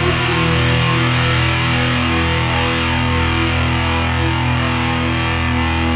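Music: a distorted electric guitar chord, held and left to ring steadily without drums, the closing chord of the piece.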